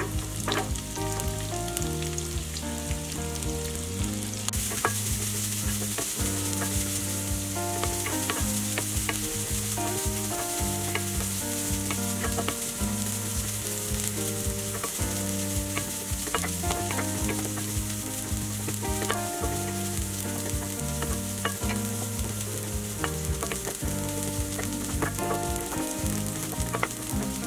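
Diced shallots frying in hot sesame (gingerly) oil in a pan, a steady sizzle that grows stronger about four seconds in, with scattered taps and scrapes of stirring.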